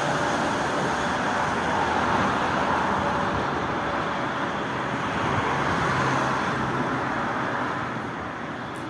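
Road traffic noise from passing vehicles, a steady rushing that swells twice and fades toward the end.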